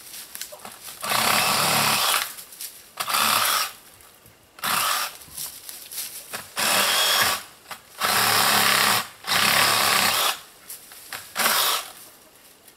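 A handheld power tool runs in about seven short bursts, each from under a second to about a second long, with pauses between them, as it works at a fastening that holds the chain-link fence.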